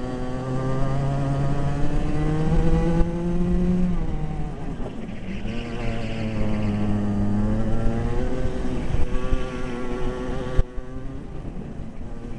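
Racing kart engine heard from on board, its pitch climbing under acceleration and dropping as it slows for corners, twice over.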